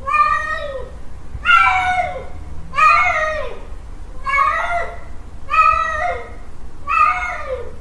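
Male cat's mating call: a tomcat yowling over and over, about six drawn-out calls roughly a second and a half apart, each dropping in pitch at its end.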